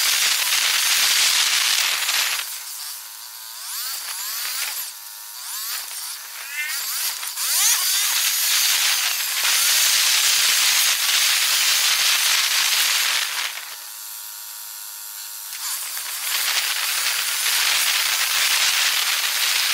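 Ride audio played ten times too fast: wind and road noise turned into a loud high hiss that swells and dies back in long surges. Short squeaky rising and falling chirps come through in the first quieter stretch.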